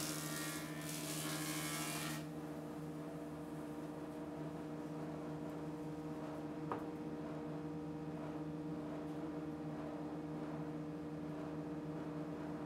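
Old cast-iron surface planer (jointer) running, its cutter block taking a board for about the first two seconds with a loud rushing noise. It then runs idle with a steady hum. A single sharp click comes about halfway through.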